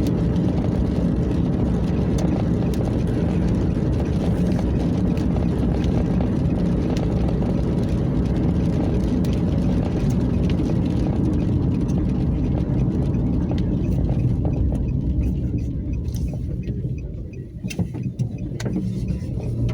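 Car cabin noise while driving on a wet road: a steady rumble of tyres and engine. About sixteen seconds in it drops away as the car slows, then picks up again near the end.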